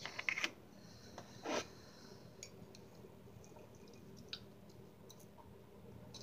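A plastic cup being handled: a few light clicks and knocks at the start and a short rustle about a second and a half in, then faint scattered ticks over quiet room tone.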